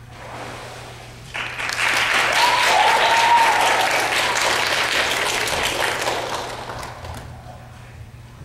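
Congregation clapping, breaking out suddenly about a second and a half in, at its loudest for a couple of seconds, then dying away before the end. One voice calls out briefly over the clapping.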